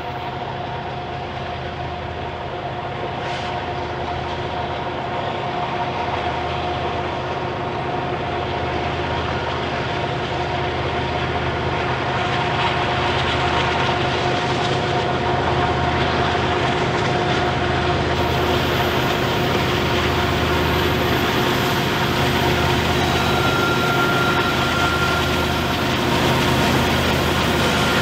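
BNSF diesel-electric locomotives pulling a loaded coal train upgrade, engines running with a steady low rumble and a droning whine. The sound grows gradually louder as the locomotives approach and come close.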